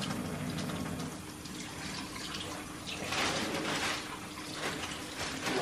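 Water running from a tap over hands being washed, getting louder for about a second roughly three seconds in.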